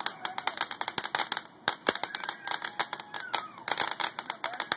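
Ground fountain firework crackling: a rapid, irregular string of sharp snaps and pops, with a brief lull a little before two seconds in.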